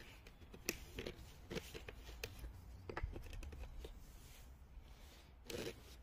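Faint, scattered clicks and scrapes of a hand-shaped wooden workbench peg being handled and fitted in a hole in the wooden benchtop, about a dozen small knocks over a few seconds.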